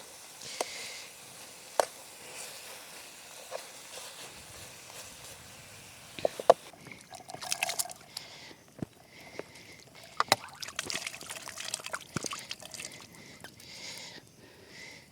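Water trickling and sloshing, with scattered sharp knocks and clicks.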